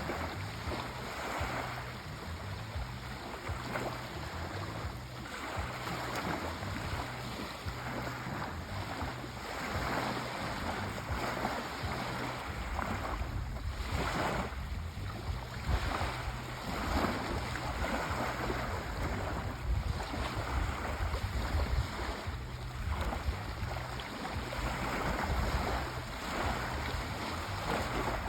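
Sea waves washing on a shore, a continuous rushing surf that swells and eases every few seconds, with some low wind rumble.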